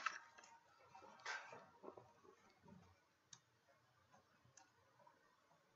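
Near silence, with faint rustling of a paper picture book being handled and held up in the first two seconds, then two faint clicks.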